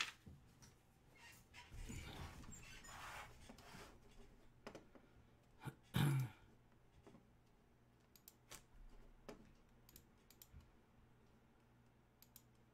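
Faint, scattered clicking of a computer keyboard, with a soft rustle about two seconds in and one louder thump about halfway through.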